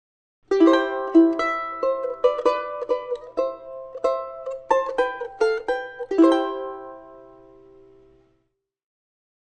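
Short musical intro on a plucked string instrument: a quick run of notes, then a final chord that rings and fades out.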